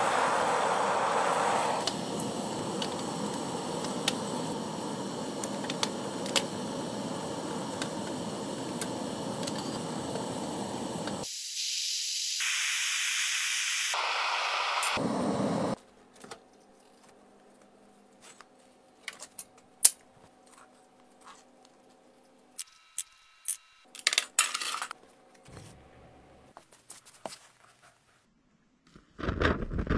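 Steady rushing hiss of a metal-melting furnace running, changing in tone about eleven seconds in and cutting off suddenly after about fifteen seconds. Then it goes quiet, with scattered small clicks and knocks, and loud crackling starts right at the end.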